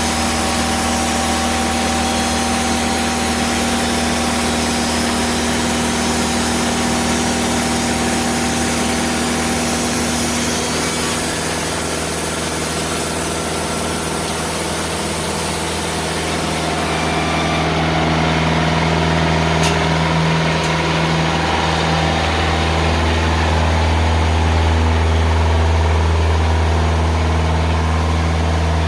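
Diesel engine of a TimberKing 2000 band sawmill running steadily while the band blade cuts through a large ash log with a steady hiss. About two-thirds of the way through, the cutting hiss stops; the engine keeps running and its low hum grows louder.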